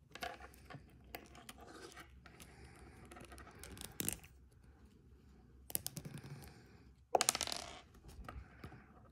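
Small hard plastic action-figure parts clicking and scraping against each other as fingers try to snap a fist onto the figure's arm, with a few sharp clicks and a louder crackling scrape about seven seconds in.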